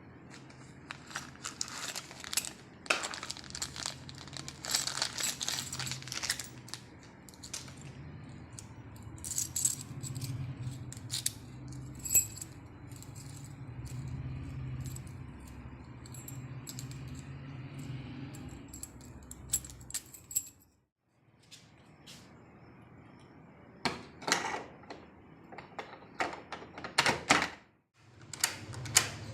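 Irregular clinks and clicks of small hard objects being handled, over a low steady hum. The sound drops out briefly twice, once about two-thirds through and once near the end.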